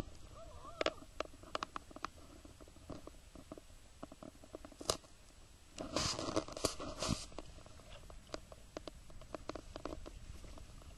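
Double-bladed kayak paddle dipping into slow river water: scattered light splashes and drips, with a busier run of splashes about six seconds in.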